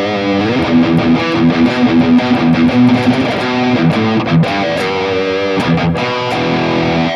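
Electric guitar played through the Mooer Prime S1 modelling unit's amp model, with a cabinet impulse response and the mids cut by EQ. It plays a line of held and quicker notes.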